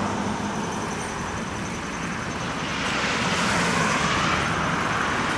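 Road traffic passing on the highway: the tyre and engine noise of passing vehicles swells in the second half.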